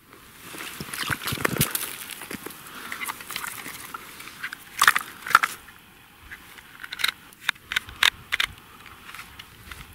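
Wet ice and slush crunching and crackling as a bare hand scoops in an ice-fishing hole, followed by sharp clicks and taps from handling a small winter fishing rod and its reel: two loud clicks about halfway through and a quick run of clicks near the end.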